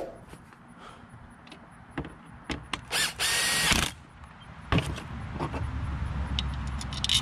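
Cordless Makita driver runs for about a second, driving in a through-bolt that pulls the alternator's case halves together. A few light clicks of metal parts being handled come before it, and a low hum builds toward the end.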